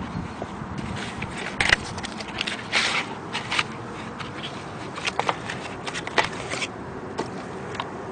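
Handling noise from the parts of a small solar panel kit being set out by hand on grass: irregular scraping, rustling and clicks, with two louder scrapes about one and a half and three seconds in.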